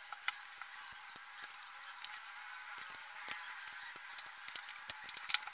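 Irregular small clicks and ticks of a JBL Pulse speaker's plastic housing and tiny screws being handled as the speaker is taken apart, over a steady hiss. The clicks come in a quicker, louder cluster near the end.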